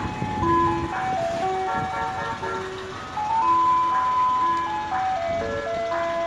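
Ice cream truck's chime jingle playing a simple melody of clear single notes that step up and down.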